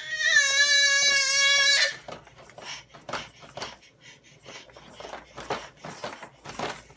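A baby's long, high, wavering squeal lasting about two seconds and cutting off suddenly, followed by irregular light tapping and clattering of the activity centre's plastic toys.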